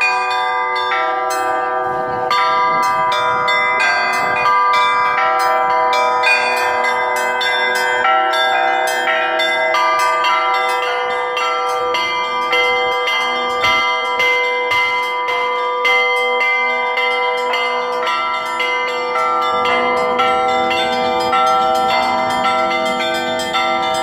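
Russian-style bell ringing on a set of bronze bells hung in a wooden frame, their clappers pulled by ropes: many bells struck in quick, continuous patterns, their tones overlapping and ringing on.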